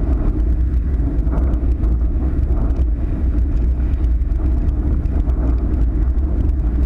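Wind buffeting the microphone of a rig-mounted action camera on a windfoil board under way: a steady, low, uneven rumble.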